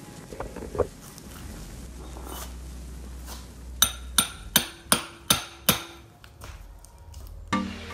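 Hammer striking metal: six quick blows about a third of a second apart, each ringing briefly, during the building of a homemade drill press. Music starts near the end.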